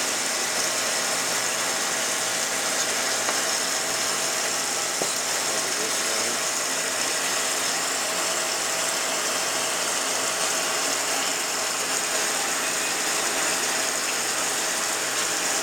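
Citizen Type E32 Swiss-type CNC turning center running its cutting cycle: a steady mechanical whir and hiss with a few faint steady tones.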